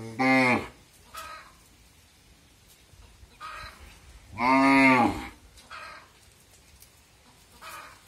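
Goats bleating twice, each a loud, pitched call of about half a second, about a quarter second in and again around four and a half seconds. Fainter, shorter, higher calls come in between.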